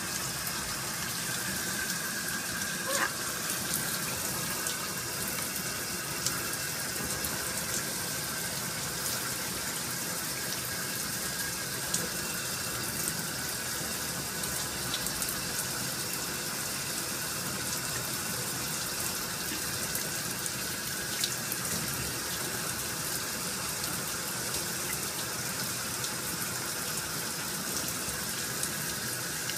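Hot water running steadily from a tap, with a few faint small clicks over it.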